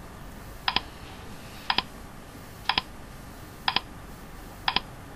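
Countdown timer ticking once a second: five short, sharp double-clicks with a slight ring, over a faint steady hiss.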